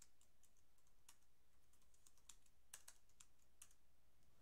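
Faint typing on a computer keyboard: an irregular run of key clicks.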